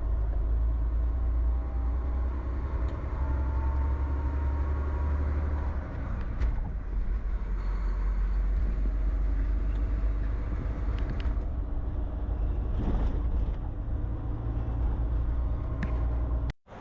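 Semi-truck's diesel engine running under way, heard from inside the cab as a steady low drone with a faint whine rising a few seconds in. It cuts off abruptly near the end.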